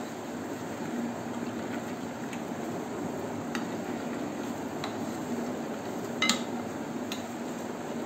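A metal spoon stirring a wet spice marinade in a glass bowl: a steady wet stirring sound with a few light clinks of the spoon against the glass, the loudest about six seconds in.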